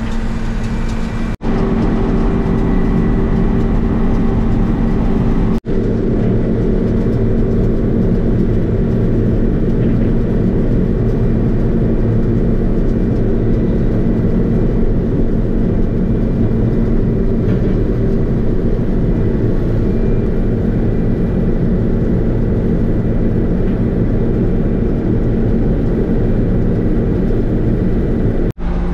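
John Deere combine running under load while harvesting corn, heard from inside the cab: a steady drone with a held whine over a low rumble. It cuts out for an instant about a second and a half in and again near six seconds.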